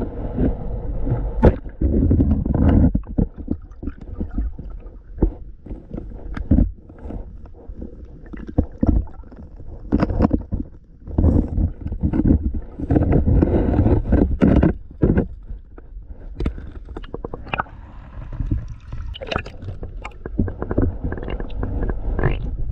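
Muffled underwater river noise picked up by a submerged camera: low rumbling and gurgling water that swells and fades irregularly, with scattered clicks and knocks.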